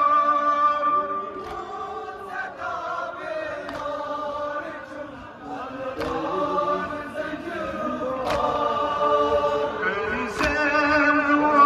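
A man chanting a Kashmiri noha (Shia mourning lament) into a microphone over a loudspeaker, in long, wavering held notes that fall away for a moment in the middle and then swell again.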